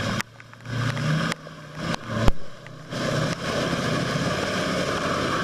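Lifted Ford Super Duty pickup truck's engine pulling up a muddy gravel track and driving past. The sound drops away and comes back abruptly several times, and there is one sharp knock about two seconds in.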